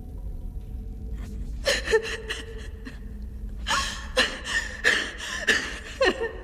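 An animated character's shaky, gasping breaths, in short sobbing bursts that start about a second and a half in and come thick and fast in the second half, over a low steady hum.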